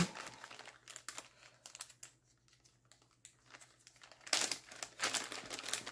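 Clear plastic bag crinkling as hands rummage through loose beads inside, with scattered small clicks; the rustling gets louder and denser about four and a half seconds in.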